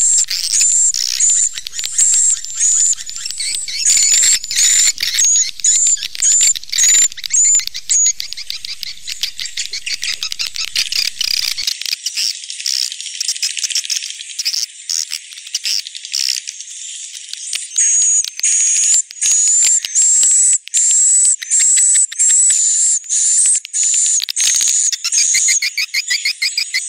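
Swiftlet calling-sound recording, played to lure swiftlets into a nesting house: rapid high-pitched chirps repeated about twice a second, turning into a denser twittering chatter through the middle and back to the chirp train near the end.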